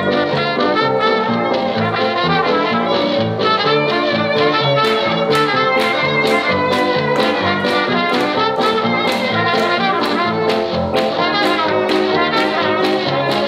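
Up-tempo swing jazz with trumpets and trombones over a steady beat.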